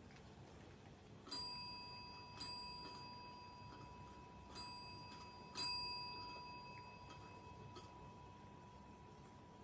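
Chrome service bell rung four times by a cat's paw pressing the plunger, each ding ringing out clearly and fading slowly; the rings come in two pairs, and the fourth is the loudest.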